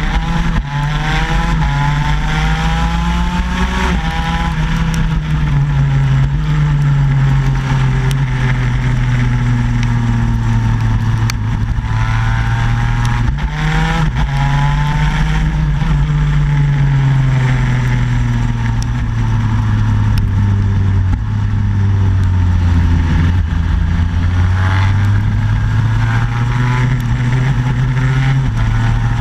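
Shifter kart's two-stroke engine at full race pace, heard close up: the engine note climbs steadily through each gear and drops abruptly at each upshift, several times, with a rush of wind and track noise over it.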